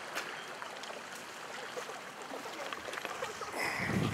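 Shallow river running steadily over rocks, with a louder sloshing surge near the end as a person in waders strides through the water.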